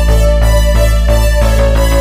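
Synthwave preset demo on the u-he Repro-5 software synthesizer, an emulation of the Prophet-5 analog polysynth: a held note over a steady low bass, with notes repeating about three times a second that quicken about one and a half seconds in.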